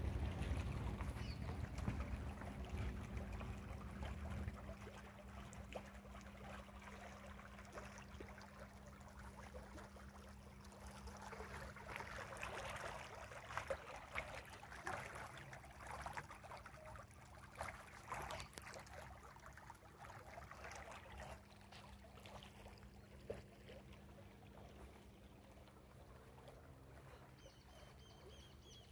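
Faint outdoor ambience: wind buffeting the microphone during the first few seconds, a steady low hum underneath, and scattered soft crackles and rustles through the middle.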